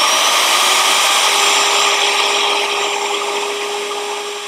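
Skil soft-start router running free at full speed in a router table with a straight bit and no wood being cut: a steady high motor whine over an even rushing noise, running smoothly. It eases off slightly toward the end.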